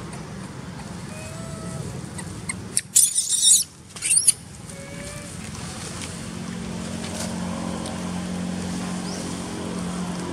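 A steady low engine hum, as of a passing or idling vehicle, stronger in the second half. About three seconds in, two brief shrill high-pitched squeals, the loudest sounds, cut through it less than a second apart.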